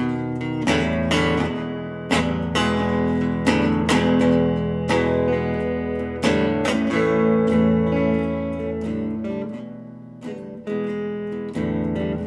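Fender Telecaster electric guitar played through a Fender Princeton amplifier: a series of strummed chords, each struck sharply and left ringing.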